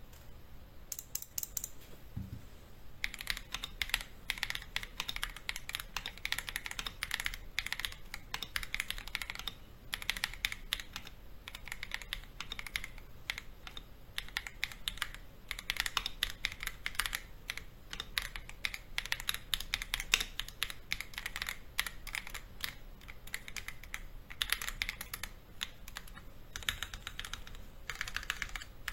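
Typing on an Akko ACR Pro 68 gasket-mount 65% mechanical keyboard with Akko Crystal switches (43 g actuation), an aluminium plate and PBT keycaps. A few light taps, then fast continuous keystrokes from about three seconds in, a sound between thock and clack with prelubed stabilizers.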